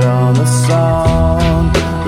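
Instrumental stretch of a pop song: a steady bass line and drum hits under sustained melodic notes, with no vocals.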